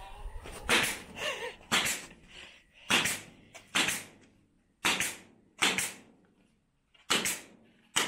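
Pneumatic nail gun firing into a wooden frame: seven sharp shots, roughly one a second.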